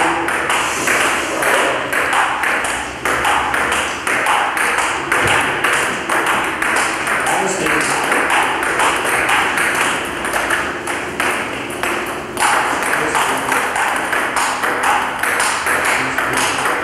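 Table tennis rally: the celluloid ball clicks off rackets and table several times a second in a steady, quick rhythm, with a short break about twelve seconds in.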